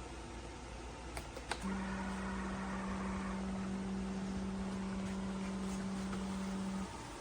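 Electric coffee maker: two clicks, then a steady low electric hum for about five seconds that cuts off suddenly.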